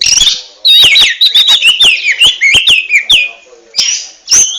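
Oriental magpie-robin (kacer) singing loudly: a fast run of sharp clicks and short whistled notes that slide downward, pausing briefly just after three seconds in before starting again.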